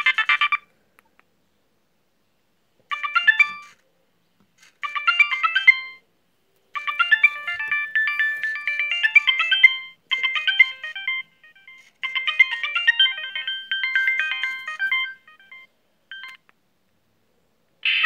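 Nokia 3510i phone speaker playing polyphonic ringtone previews: short synthesized melodies that start, play for a few seconds and cut off as the ringing-tone list is scrolled. A louder new tune starts near the end.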